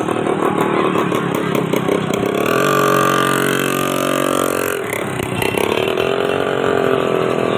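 A bus horn sounds one held, steady tone for about two seconds, starting a little under three seconds in, over the continuous noise of running engines.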